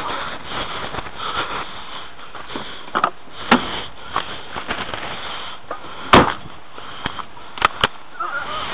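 Rustling handling noise from a handheld camera, with several sharp clicks or knocks, the loudest about six seconds in.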